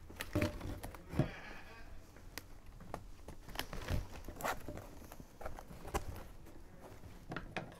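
Plastic baling straps being handled and threaded through a woven strap basket: irregular clicks and ticks as the stiff straps flex and knock, with a brief scratchy rub about a second in as a strap slides through the weave.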